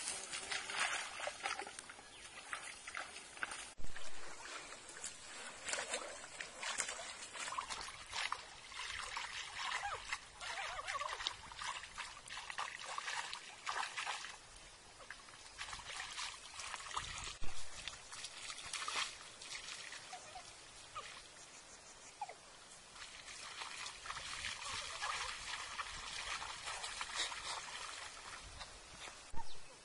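Water splashing, sloshing and trickling as a mosquito net is dragged by hand through a shallow muddy pond, with a few louder thumps.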